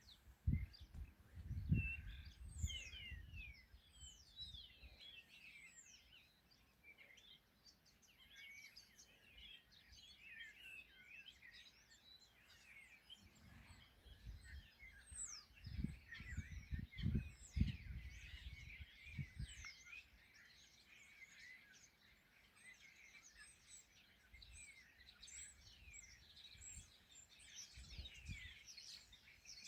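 A chorus of small songbirds chirping and trilling without a break, with a few low rumbling bursts near the start, in the middle and near the end.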